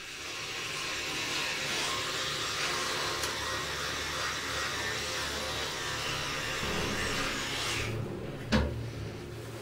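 Electric toothbrush running while teeth are brushed, a steady buzzing hiss that stops a little before the end, followed by one sharp knock.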